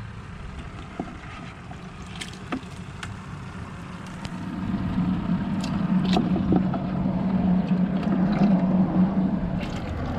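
A hand sloshing through water in a bait bucket to catch live baitfish, with small splashes and taps. Under it, a low engine hum grows louder from about halfway through and eases near the end.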